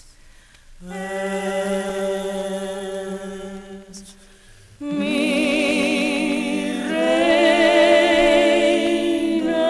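Bolero vocal trio holding long notes in close harmony with vibrato, closing the song. There are two held chords: a softer one starting about a second in, then a louder one about five seconds in that steps up in pitch near the end.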